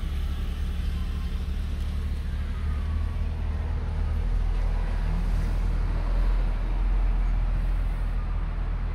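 Low steady rumble of a car's engine and road noise heard from inside the cabin; about four seconds in, the rumble drops to a deeper hum.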